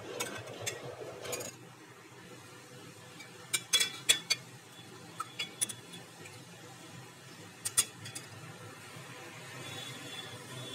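A steel spoon in a glass jug of drink, clinking sharply against the glass several times. The loudest clinks come in a quick cluster about four seconds in, with a pair more near eight seconds.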